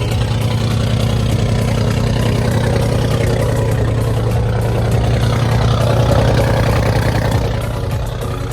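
Mercedes-AMG G63 Brabus 700's twin-turbo V8 idling with a deep, steady hum, swelling slightly about six seconds in.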